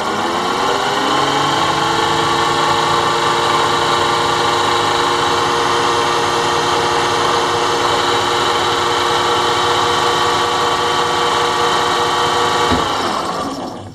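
Electric boat motor spinning up with a rising whine, then running steadily at speed before winding down and stopping at the very end. It is sounding a lot better after repair; the owner puts any remaining rub down to a small flake of metal stuck to one of the magnets brushing the rotor.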